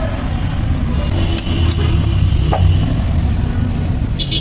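A motor vehicle's engine running close by in street traffic, a low rumble that swells to its loudest about halfway through. A couple of sharp clicks sound about a second and a half in.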